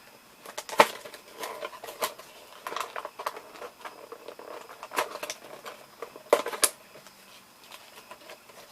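Booster pack packaging being torn open and handled by hand: an irregular run of crinkling and sharp clicks, the loudest near the start and again around five and six and a half seconds in.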